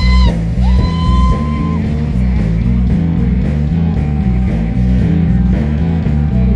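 Rock music with guitar and a repeating bass line.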